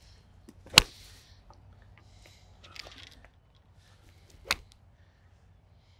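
Two golf iron shots: sharp cracks of the clubface striking the ball. The first, about a second in, is the louder; the second comes about four and a half seconds in.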